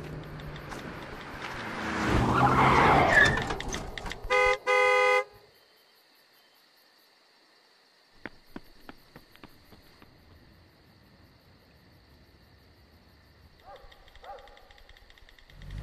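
Road vehicle sounds: a low engine hum swells into a loud rush, then a car horn honks twice in quick succession. After that it is mostly quiet, with a few faint clicks.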